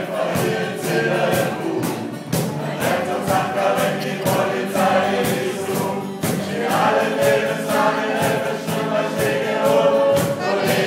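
Song with several voices singing together over a backing track with a steady beat.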